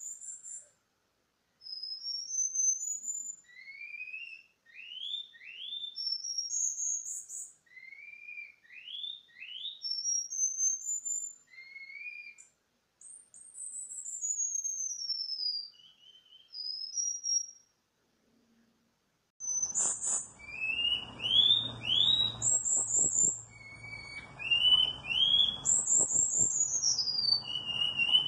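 Cuban bullfinch (negrito) singing in its cage: phrases of short, high, rising whistled notes with brief pauses between them. About two-thirds of the way through, a steady background noise comes in under the song, and the phrases follow each other more closely.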